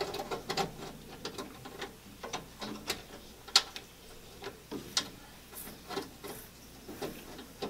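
Screwdriver backing screws out of the gas grill, a string of irregular small clicks and light metal knocks.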